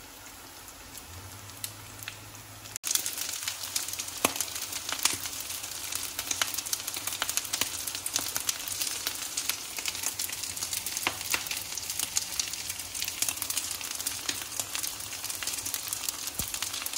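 Buckwheat cutlets frying in sunflower oil in an uncovered pan: a steady sizzle full of small crackles and pops. About three seconds in it jumps abruptly louder.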